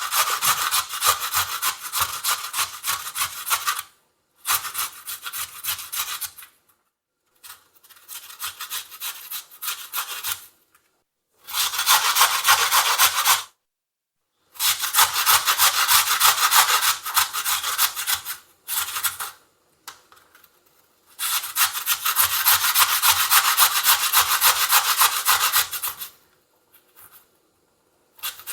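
A carrot being grated on a metal kitchen grater: runs of quick rasping strokes, each a few seconds long, broken by short pauses.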